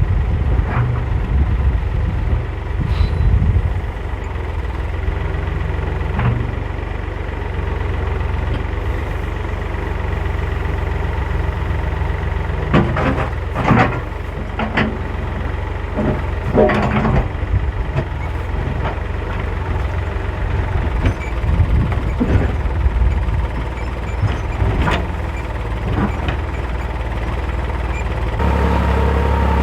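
Backhoe engine running steadily, with several sharp metallic clanks and knocks from the work about halfway through and again near the end.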